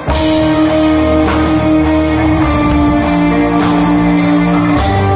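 Live rock band with electric guitars and drum kit, coming in loudly all together just after the start and playing on at full volume with a steady beat and held guitar notes.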